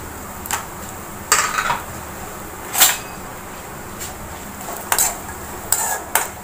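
A spoon stirring cashew nuts frying in ghee in a metal kadai, giving a series of short scrapes and clinks against the pan every second or so.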